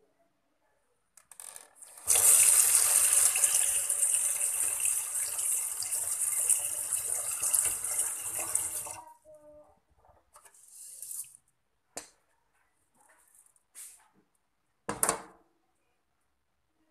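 Tap water pouring into a rice cooker's inner pot over uncooked rice, the cooking water being added, for about seven seconds before it is shut off. Afterwards come a few faint clicks and a brief sharp knock near the end.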